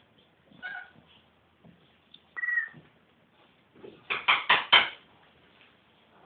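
Siamese and Oriental Shorthair cats giving two short, high mews, followed about four seconds in by a quick run of four knocks.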